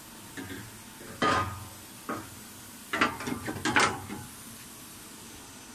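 Metal parts and clamps clanking as they are handled on a milling machine's bed: a sharp knock about a second in, another shortly after two seconds, then a quick cluster of clatters around three to four seconds.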